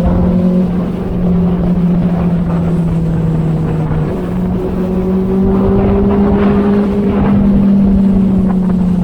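Inline-four sport motorcycle engine running at a steady cruising speed, its pitch stepping up slightly about four seconds in and then holding, with wind buffeting on the bike-mounted camera's built-in microphone.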